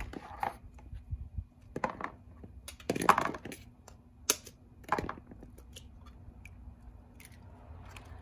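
Irregular scrapes and knocks of a knife and container being handled while slimy aloe vera gel is mixed with egg and soy meal, loudest about three seconds in, with a sharp click a second later, then quieter.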